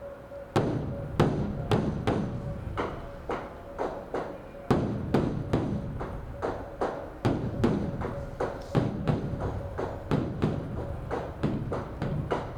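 Beopgo, a large Korean Buddhist temple drum, struck rapidly with two sticks in a running rhythm of about three to four beats a second, some beats louder than others. It is the drum part of the temple's evening ritual that summons the monks to worship.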